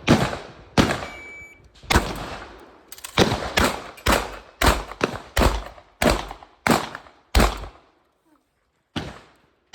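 Shotgun shots fired by a competitor running a timed practical-shooting course of fire: about a dozen shots in quick, uneven succession, each with a short echo. After a pause of about a second and a half, one more shot comes near the end.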